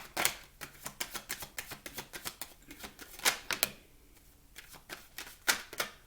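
Tarot cards being shuffled and handled to draw a clarifying card: a quick, irregular run of card-on-card clicks and slaps, with a few louder snaps.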